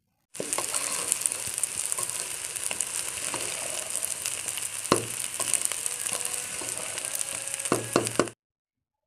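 Rice, lentils and spices sizzling in oil in a pot while being stirred with a wooden spatula, the rice being fried before water goes in. A few sharp knocks of the spatula against the pot, one about five seconds in and a cluster near the end; the sound starts and stops abruptly.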